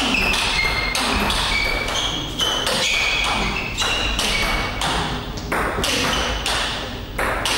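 Table tennis rally: a quick run of sharp clicks and pings as the ball is hit with the bats and bounces on the table.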